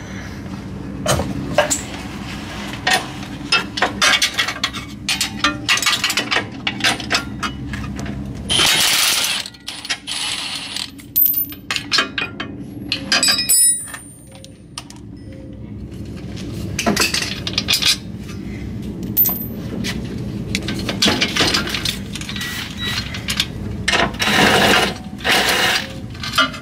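Cordless impact wrench running in short hammering bursts on bolts under the car, one about 9 seconds in and several near the end, among many sharp metallic clinks and taps of hand wrenches and loose parts.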